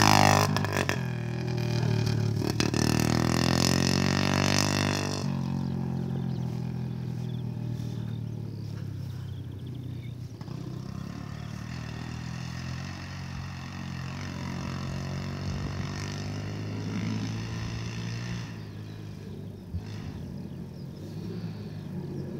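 Small dirt bike engine running close by, its note dropping away sharply about five seconds in and then fading as the bike rides off into the distance.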